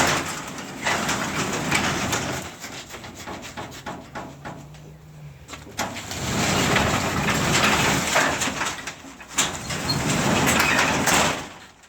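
A 16-foot sectional garage door, reinforced with steel furring channel, rumbling and rattling along its tracks as it is opened. The noise comes in two long stretches with a quieter pause between and stops just before the end.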